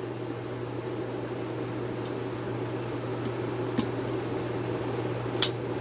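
Two short clicks from a Buck 040 Onset flipper knife being worked, a faint one and then a louder one about a second and a half later near the end, over a steady background hum.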